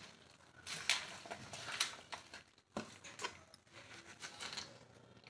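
A hand kneading raw chicken pieces with sliced onions and spices in a steel bowl, making a series of soft, irregular squishing and rustling noises.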